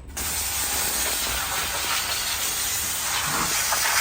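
Water jet spraying onto a white oak log to wash off dirt before milling: a steady hiss that starts and stops abruptly.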